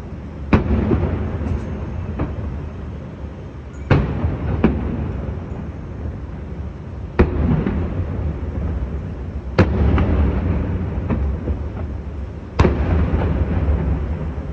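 Aerial fireworks shells bursting: five loud booms about three seconds apart, each followed by a long rumbling tail, with a few fainter bangs in between.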